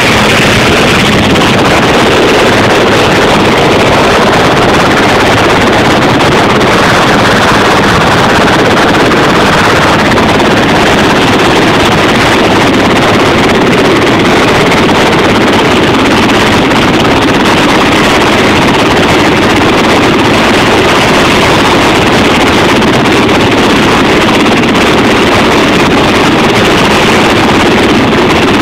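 Loud, steady roar of heavy machinery mixed with wind, holding at one level with no breaks.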